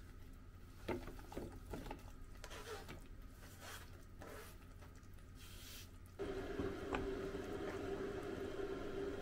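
Sliced onions slid off a cutting board into a pot of simmering beef, with scattered soft clicks and scrapes as the pieces drop and the board scrapes the rim. About six seconds in it changes abruptly to a steady hum with a soft simmering hiss from the pot.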